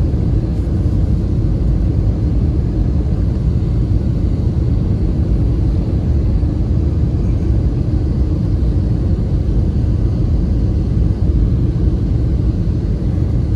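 Steady low rumble of jet engines and rushing air heard inside the cabin of an Airbus A320-family airliner descending on approach to land.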